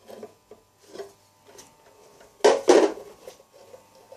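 Hard objects being handled and set down: scattered clunks and scraping, with two loud knocks close together about two and a half seconds in.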